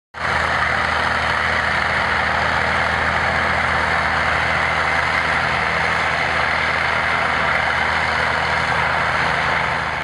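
Vintage crawler bulldozer's engine running steadily as the machine pushes dirt with its blade, a low even hum under a constant hiss.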